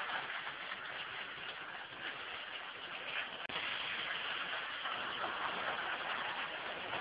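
Hornby model locomotive running on the track pulling a rake of wagons, a steady whirring of motor and wheels, with a single sharp click about three and a half seconds in.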